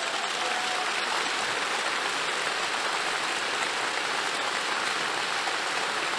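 A large crowd applauding steadily: a dense, even clatter of many hands clapping.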